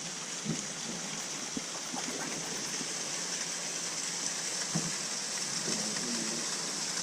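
Steady rush of river water over rapids, with a few faint knocks.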